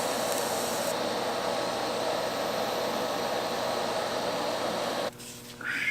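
TIG welding arc hissing steadily, then cutting off abruptly about five seconds in as the arc is broken.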